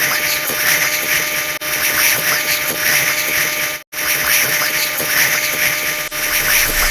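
Dense, buzzing wash of many short sound effects piled on top of one another, triggered by a fast-running binary counter, with rapid tiny clicks throughout. It cuts out for a moment about four seconds in.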